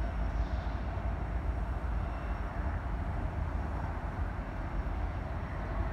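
Steady low rumble of a distant diesel-hauled freight train in a rail yard.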